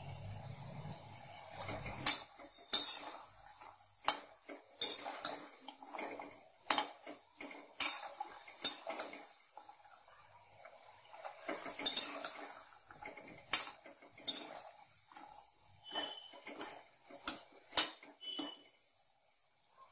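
Cashew-shaped maida dough pieces deep-frying in hot oil in a metal kadhai, sizzling steadily, while a perforated metal skimmer stirs them, clinking and scraping against the pan in irregular sharp knocks.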